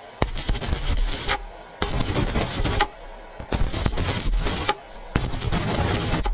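Stick-welding arc crackling and sputtering as the electrode is weaved side to side across the weld pool. The crackle comes in stretches of about a second and a half, dropping away briefly between them.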